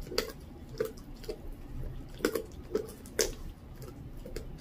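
Dachshund chewing and tearing at a raw whole duck: a string of irregular sharp smacks and clicks from its mouth on the flesh, the loudest about two and three seconds in.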